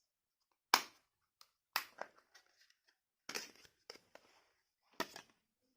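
Sharp plastic clicks and snaps, about half a dozen spread irregularly, the loudest about a second in: a small keypad mobile phone being handled as its plastic back cover is pried open.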